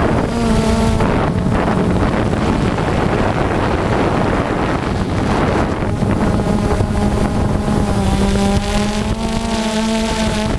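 FPV quadcopter's motors and propellers whining, the pitch shifting up and down with the throttle, over heavy wind noise on the microphone.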